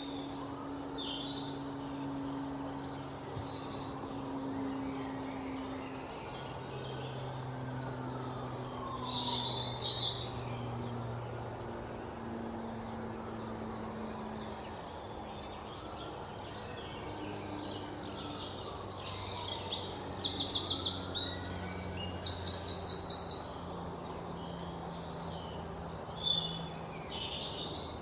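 Several birds chirping and calling in short high notes throughout. Two louder rapid, rattling trills come about two-thirds of the way in.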